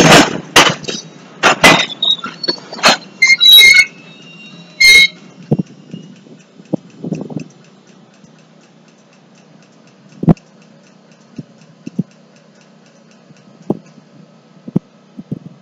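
Freight cars rolling slowly past, wheels clanking loudly over the rail joints with a brief high metallic squeal about three to five seconds in. After that the sound drops to a low steady hum with occasional single clicks.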